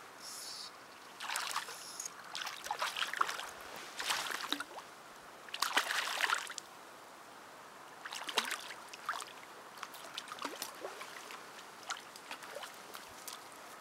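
Irregular splashing in shallow lake water as a hooked grayling thrashes at the surface by the bank and is handled in the water, the biggest splash about six seconds in and smaller splashes and drips after.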